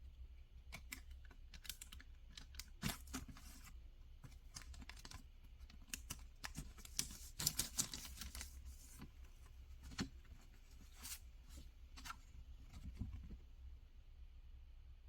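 Irregular light clicks, taps and crinkly rustling of objects and packaging being handled, busiest in the middle.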